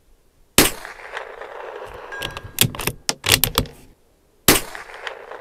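Two shots from a Bergara B14R bolt-action .22 LR rifle firing Remington Target ammunition, about four seconds apart, each trailing off in a short echo. Between them comes a quick run of metallic clicks as the bolt is worked to eject the spent case and chamber the next round.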